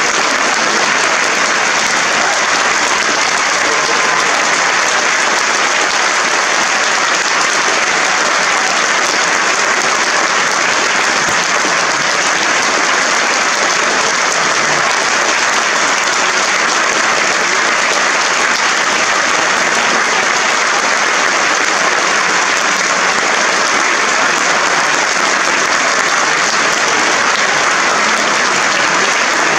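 Theatre audience applauding: steady, dense clapping from many hands that keeps up at an even level with no break.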